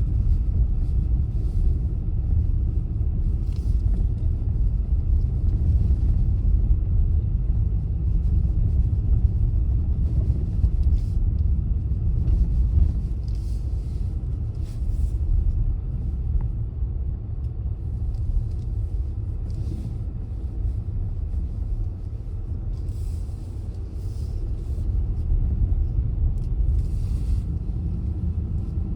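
Car driving on the road: a steady low rumble of engine and tyres, with brief faint hisses every few seconds.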